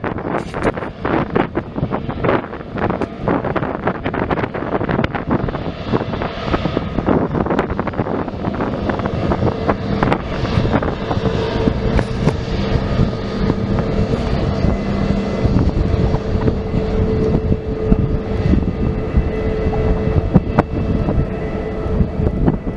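Airplane engines running, with a steady whine that comes in about ten seconds in and fades near the end, under wind buffeting on the microphone.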